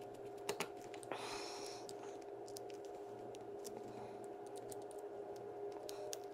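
Small, light clicks and ticks of metal reel parts and a small tool being handled during the reassembly of a Shimano Curado DC baitcasting reel, scattered irregularly over a faint steady hum.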